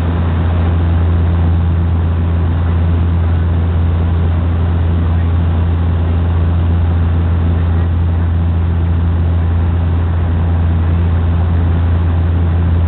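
Cabin noise inside a Bombardier Q400 turboprop airliner in flight: its six-blade propellers and engines make a steady, unchanging low drone, with a constant rush of air over it.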